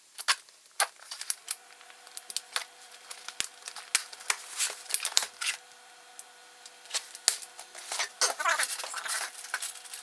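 Packing tape peeled off a cardboard box and the box flaps and contents handled: a quick run of crackles, rustles and cardboard clicks, with short squeaky streaks of tape pulling away near the end.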